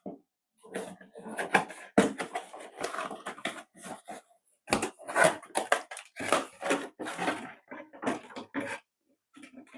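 Plastic construction-kit parts being handled and fitted together: irregular clicks, taps and rattles, with a few sharper snaps, such as one about two seconds in.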